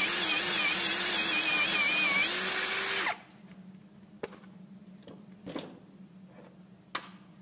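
Cordless drill running under load while drilling out a metal bushing to tapping size, its pitch wavering, then stopping abruptly about three seconds in. After that come a few light clicks over a faint low hum.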